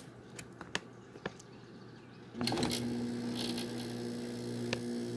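Window air conditioner's fan running at a low hum with a few light clicks, then about two and a half seconds in its GE rotary compressor starts up suddenly and settles into a steady, pitched hum.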